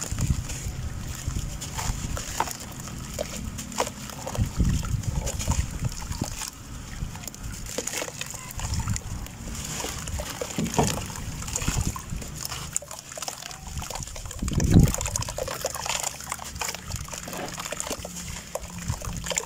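Soft red dirt clumps crumbled by hand into a basin of water: wet crumbling, plops and sloshing of muddy water, with a louder splash about fifteen seconds in.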